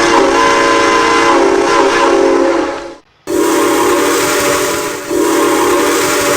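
Steam whistle blowing two long blasts over a rush of hissing steam. The first cuts off about three seconds in; after a brief break a second blast starts and holds steady.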